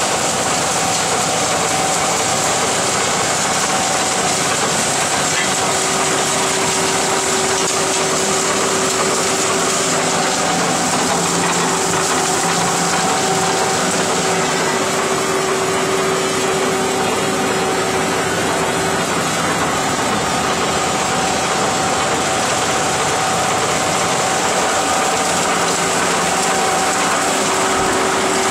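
Trommel screen running: electric motors and gear reducers turn the screening drum and drive the belt conveyors, with soil spilling off the discharge conveyor. A steady mechanical noise with a few steady hums, unchanging throughout.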